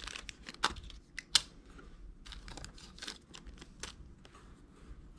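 Handling noise: paper cards and small parts being put into an open plastic hard case, a scatter of light clicks, taps and paper rustling, the sharpest clicks about two-thirds of a second, one and a half seconds and four seconds in.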